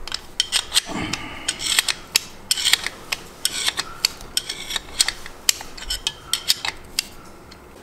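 Steel spanner wrench clicking and scraping against the threaded spring-perch collar of a Tein Flex Z coilover as the collar is worked round in short strokes: irregular sharp metallic clicks, several a second.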